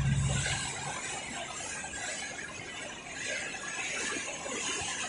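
Floodwater rushing across flooded ground in a steady, noisy rush, with a low rumble that fades out about a second in.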